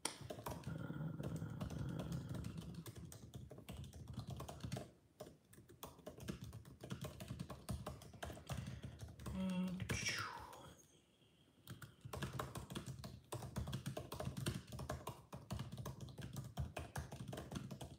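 Typing on a computer keyboard: quick runs of key clicks that pause briefly twice. About ten seconds in, a short pitched sound rises and falls over the clicking.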